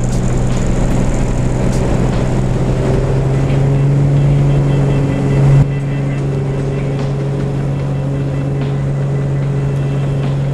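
Cessna 210 Centurion's six-cylinder piston engine and propeller at takeoff power on the runway, heard from inside the cabin as a loud, steady drone. The sound changes abruptly a little over halfway through.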